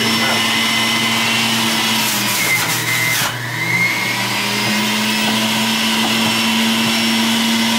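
Electric centrifugal juicer motor running steadily as celery, carrot and apple are pushed through it. A little over two seconds in, its pitch drops as the produce is pressed down the feed chute and loads the motor, then climbs back up about two seconds later.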